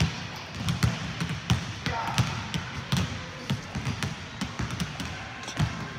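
Basketballs being dribbled on a hardwood gym floor: many sharp, irregularly spaced bounces overlapping one another.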